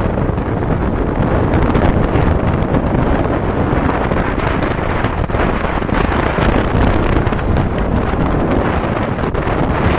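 Loud, steady wind buffeting the microphone of a phone carried on a moving motorcycle, blended with the motorcycle's engine and road noise.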